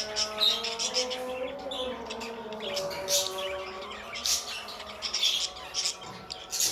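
Pet budgies chirping and chattering in many quick high notes, over background music carrying a held melody.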